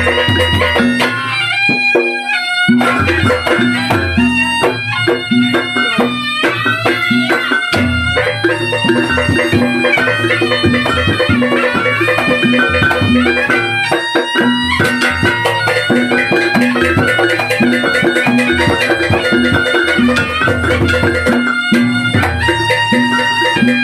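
Reog gamelan music: a reedy slompret (Javanese shawm) plays a wavering melody over a steady drone, with drums and gong strokes beneath.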